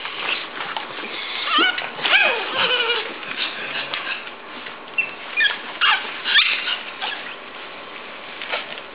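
Pug puppies whining and squealing: short, high-pitched cries in two clusters, about one and a half to three seconds in and again around five to six and a half seconds, one of them sliding down in pitch.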